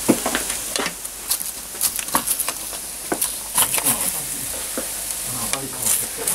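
Socca sizzling in its hot metal pan in a wood-fired oven, with many sharp crackles. Near the end a metal spatula scrapes into the pan as a piece is cut and lifted.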